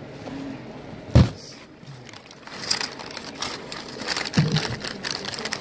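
Paper food wrapper crinkling and rustling as it is handled, with a loud thump about a second in and another near the end.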